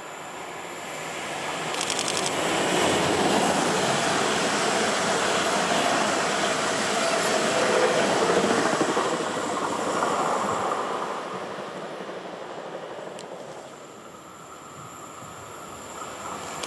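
A train passing on the track: the rumble of wheels on rail grows over the first few seconds, stays loud through the middle, and fades away after about eleven seconds.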